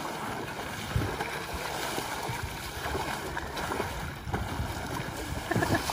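Lake water splashing and churning as several swimmers thrash their arms and slap the surface to throw up waves, a continuous, irregular splashing.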